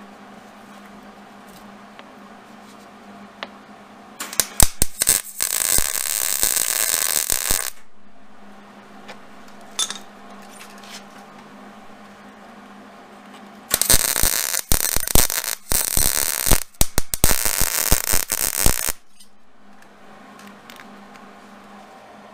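Hobart MIG welder arc crackling and sputtering in two welding runs, one of about three seconds from about four seconds in and one of about five seconds from about fourteen seconds in, as a bolt is tack-welded to a steel guard. A steady low hum sits underneath.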